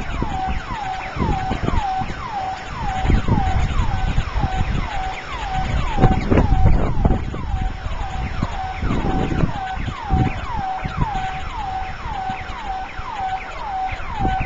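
House burglar alarm siren sounding a fast, repeating falling whoop, about two a second, really loud. It is a false alarm, which the alarm sets off every time the electricity flickers. Gusting wind rumbles on the microphone underneath.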